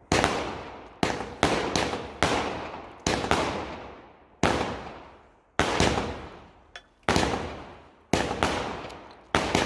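Fireworks going off in a rapid series of sharp bangs, about fourteen of them, coming one every half-second to second. Each bang dies away over about a second.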